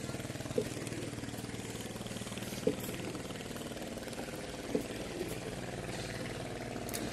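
An engine running steadily at a low, even speed, with three short sharp knocks about two seconds apart.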